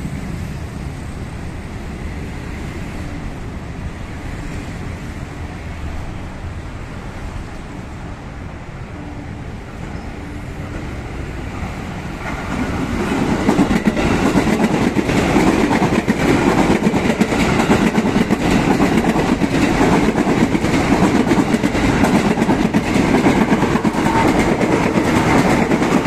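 Ex-JR 205-series KRL electric commuter train passing close by. A steady low rumble builds until about twelve seconds in, then the train arrives and a loud, continuous clatter of wheels over the rails carries on as the cars go past.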